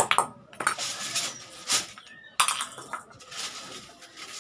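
Irregular metallic clanks and taps of iron being struck and handled in blacksmith work, about five sharp hits spread unevenly.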